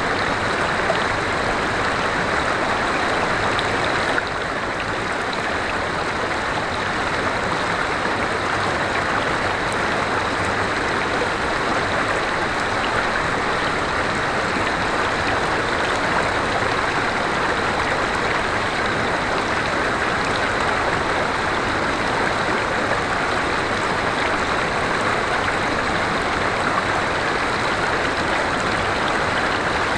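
River water flowing, a steady rushing that dips slightly in level about four seconds in.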